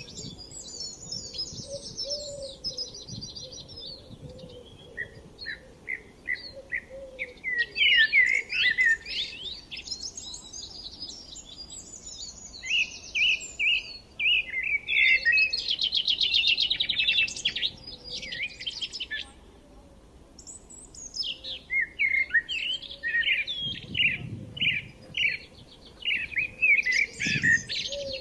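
Songbirds singing in bouts: series of short chirps and quick high trills, one fast buzzy trill about two-thirds of the way through, with brief pauses between phrases.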